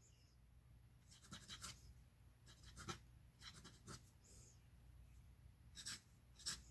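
Faint scratching of an early Wahl all-metal fountain pen's nib across lined paper, in short strokes about a second apart, as flourished letters are written.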